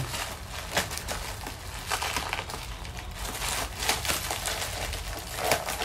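Clear plastic packaging crinkling and rustling in the hands as a small gift is unwrapped, in short uneven rustles with a few sharper crackles.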